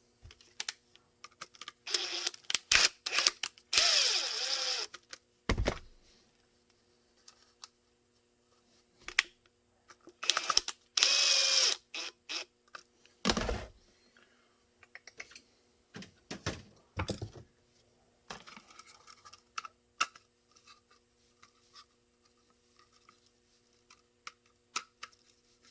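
Clicks and knocks of screws and tools being handled on a workbench, with a small power tool whirring briefly twice, about three and a half and eleven seconds in.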